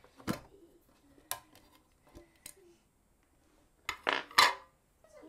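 Light metallic clicks and clinks from handling a gallon paint can and a metal paint tray, with a louder burst of clattering about four seconds in.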